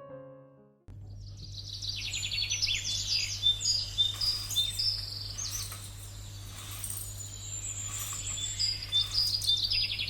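Small birds chirping and twittering in quick, overlapping calls over a steady low hum. The sound starts abruptly about a second in, after a piano melody fades out.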